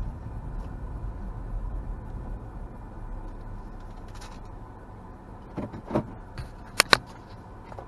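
Car running at low speed, heard from inside the cabin, its low rumble slowly dying away as it pulls in to park. Near the end come a few sharp clicks and clunks, the loudest a quick pair.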